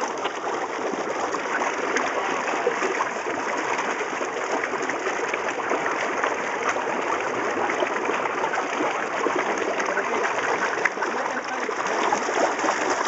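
Mine tailings slurry rushing steadily down a concrete channel, a continuous watery rush with small splashes throughout.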